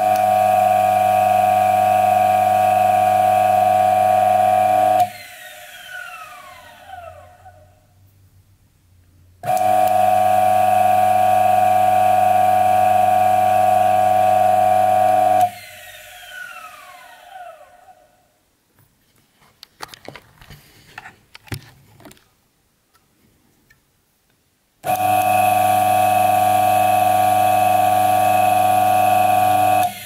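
DF64 coffee grinder motor switched on and off by its push button three times, running with a steady whine for five or six seconds each time and winding down with a falling whine after each switch-off. A few faint clicks come in the longer pause between the second and third runs.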